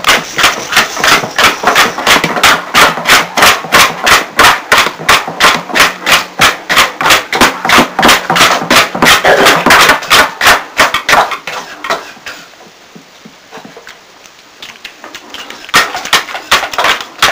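Rapid, even percussive strokes, about four or five a second. They die away for a few seconds about twelve seconds in and start again near the end.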